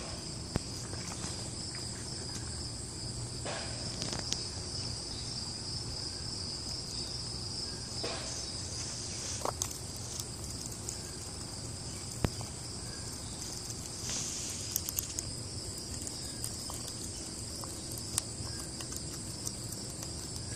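Steady outdoor chorus of insects trilling, with a few sharp clicks now and then.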